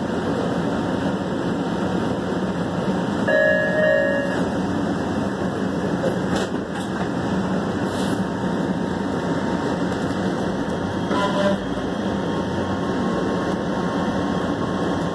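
Metro Red Line subway train running at speed through a tunnel, a steady rumble of wheels on rails heard from inside the car. Two brief high-pitched tones rise above it, the louder about three seconds in and a shorter one about eleven seconds in.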